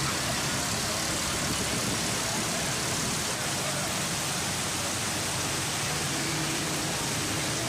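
Steady rushing noise of heavy rain and running water, with faint traffic and voices underneath.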